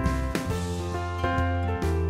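Instrumental background music, with held notes over a steady bass that change every half-second or so.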